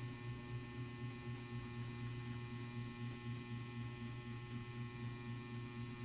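Steady low hum with a few faint ticks; no distinct event.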